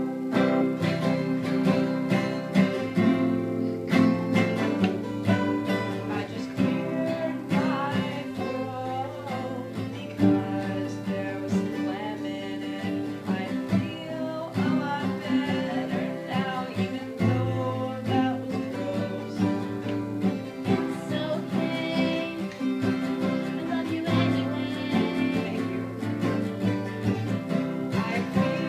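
Acoustic guitar, capoed at the fifth fret, played in a twangy country style as a song's opening.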